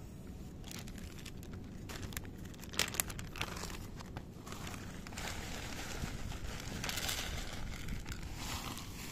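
Clear plastic zip-top bag of dry cat food crinkling as it is handled, with a few sharp crackles about three seconds in. It builds to a dense, steady rustle from about halfway as kibble is poured from the bag onto a plate.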